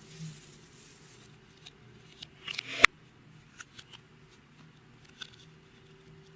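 Soft clicks and crackles from clear slime and makeup being worked by hand. A quick run of crackles builds to one sharp click a little before the middle, then scattered small clicks follow.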